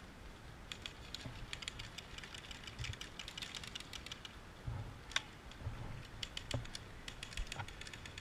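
Airsoft rifles firing, heard as many small sharp clicks in irregular clusters, with a few louder single snaps.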